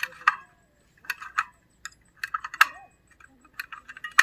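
Irregular clicking and clattering of small hard objects, in quick clusters of sharp clicks.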